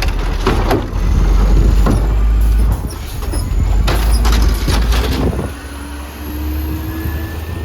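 Burrtec garbage truck working: loud clattering knocks twice, then its engine note rising steadily from about halfway through, over a heavy low rumble of wind on the microphone.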